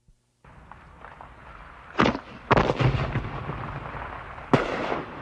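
After a brief silence, a low rumble starts, then three sharp bangs go off, about two, two and a half and four and a half seconds in, each trailing off in a rumbling tail, like fireworks exploding.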